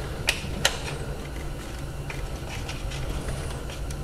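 Two sharp metallic clicks within the first second, then a few fainter ticks, over a steady low hum: hand tools working the intake manifold bolts on a BMW N52 straight-six engine.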